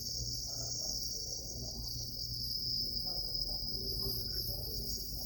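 Steady high-pitched insect chorus, with a low steady hum underneath.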